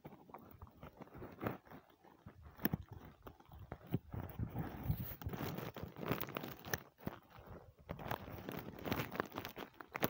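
Irregular crunching and rustling right at the microphone as the camera is handled and moved, with a jacket sleeve brushing close by.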